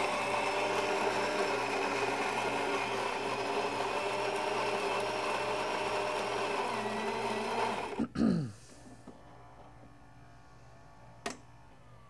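Built-in coffee grinder of a Saeco Xsmall superautomatic espresso machine running steadily as it grinds beans for a single shot. About eight seconds in it stops with a falling whine as the motor spins down, and a single click follows near the end.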